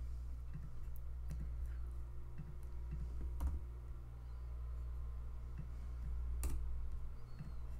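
Scattered clicks of a computer mouse and keyboard keys, with two sharper clicks about halfway through and near the end, over a steady low hum.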